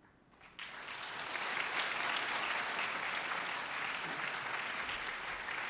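Audience applause breaking out about half a second in after a near-silent moment, then continuing as steady clapping.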